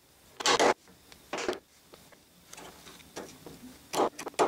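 A steel hammer striking a wood chisel to square up the end of a router-cut mortise. There are sharp knocks: two close together, one more, then two near the end, with faint scraping of the chisel paring wood between them.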